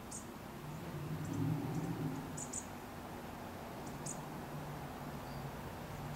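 Faint, short, high-pitched chirps from a small animal, some single and some in quick pairs, a second or so apart. A low hum swells in the background during the first couple of seconds.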